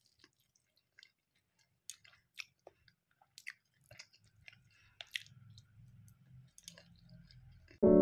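A person chewing and biting soft food close to the microphone: quiet, scattered wet clicks and smacks of the mouth. Piano music starts suddenly at the very end.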